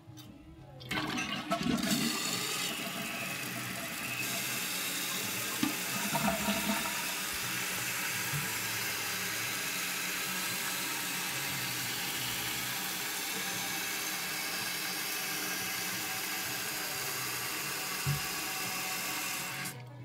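1995 Mansfield Alto toilet flushing with its tank open: a rush of water draining through the flush valve for about three seconds, then the steady hiss of the fill valve refilling the tank, which shuts off abruptly near the end as the tank fills.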